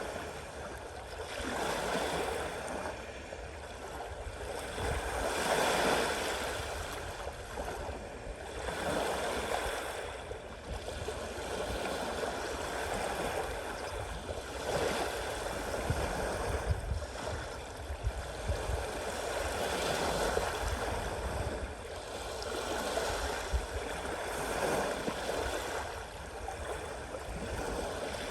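Sea waves washing and surging, the noise swelling and easing every few seconds over a steady low rumble.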